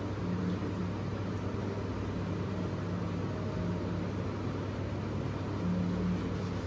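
Steady low hum and airy hiss of a running fan, with faint low tones coming and going.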